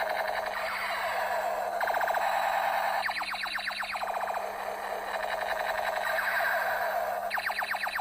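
Electronic siren-like sound effect: a wavering tone that gives way to rapid rattling pulses from about two to four seconds in and again near the end, the cycle repeating.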